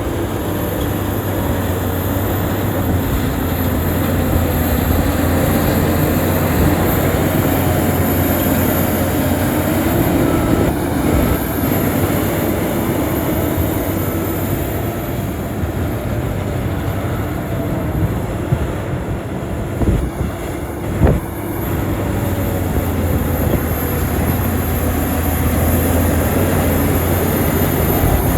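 Diesel engine of a Shantui bulldozer running steadily under work, with a couple of sharp knocks about two-thirds of the way in.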